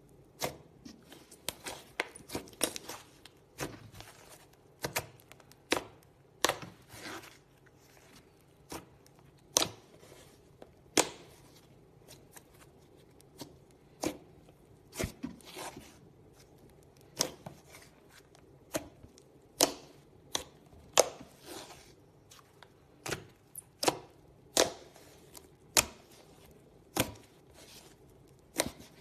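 Fluffy slime being squeezed and pressed by hand, giving irregular sharp pops and snaps, about one or two a second, with softer crackles between.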